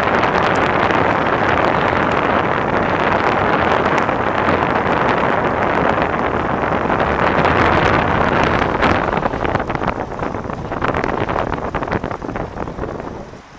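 Wind rushing over the microphone while it moves at riding speed: a loud, steady rush that eases a little in the last few seconds.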